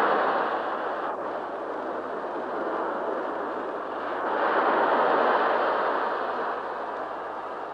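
A rushing noise with no pitch that swells, eases off, and swells again about five seconds later.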